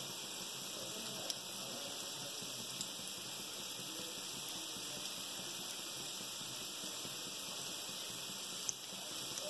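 Pakoda batter deep-frying in hot coconut oil in an aluminium kadai: a steady sizzle with a few sharp clicks.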